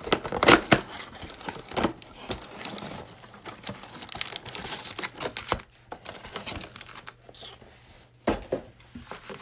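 Cardboard trading-card box being torn open and its packs of cards handled: a run of crackles and rips, loudest in the first two seconds, then quieter rustling, with one sharp knock near the end.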